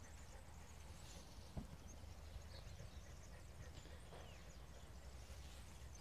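Near silence: faint outdoor background with a steady low rumble, a few faint high chirps, and a soft knock about one and a half seconds in.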